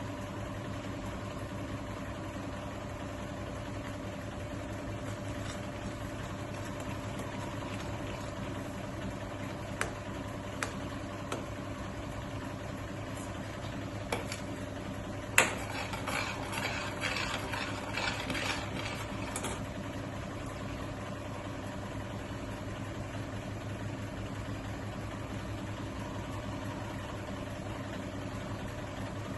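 A spoon scraping and clinking against a pan of melting jaggery for a few seconds, beginning about fifteen seconds in, after a few light isolated clicks. Under it runs a steady low kitchen hum.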